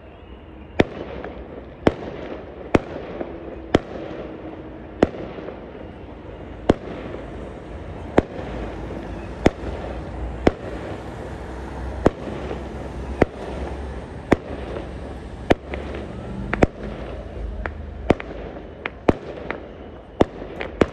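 Aerial fireworks bursting: sharp bangs about once a second, over a steady noisy wash between them.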